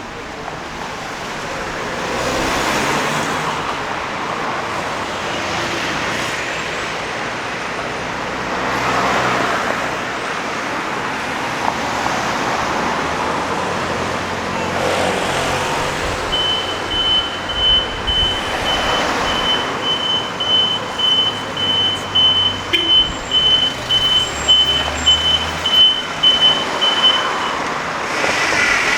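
Street traffic, with cars passing one after another. In the second half a high electronic beep repeats about twice a second for roughly ten seconds.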